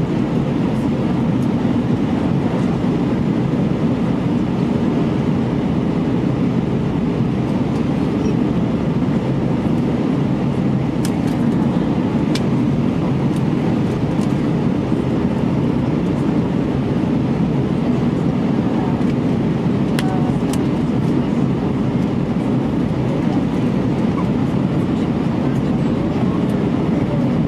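Steady cabin noise of an Airbus A319 in flight: an even, low rush of jet engines and airflow, heard inside the cabin, with a few faint ticks.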